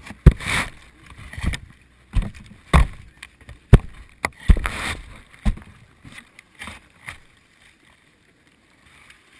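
Irregular knocks, thuds and rustles of a grape-picking tray being handled and filled, thinning out over the last couple of seconds.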